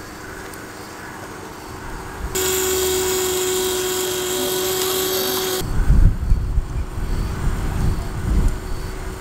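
Small electric winch motor on a 1:10 scale RC rock crawler whining steadily as it reels in its line and hauls the truck up a steep ramp. The whine is loud for about three seconds from around two seconds in, then fainter under a low, uneven rumble.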